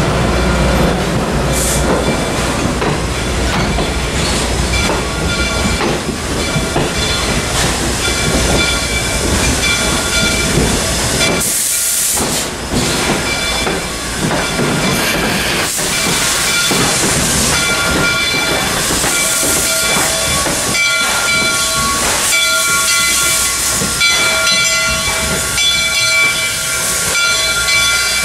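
Susquehanna 2-8-2 steam locomotive #142 and its passenger coaches rolling past at close range, wheels clicking over the rail joints, with the locomotive's steam hissing in bursts. A steady ringing note sounds through the second half.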